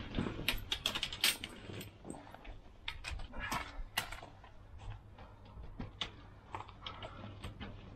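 Nash Titan T1 Mk2 carp bivvy being put up: its canopy fabric rustles while its frame poles clatter with irregular clicks and knocks, busiest in the first few seconds.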